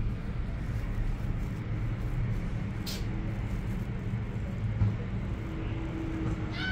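Steady low rumble heard inside a moving cable-car gondola cabin as it rides along the cable, with a single sharp click about three seconds in.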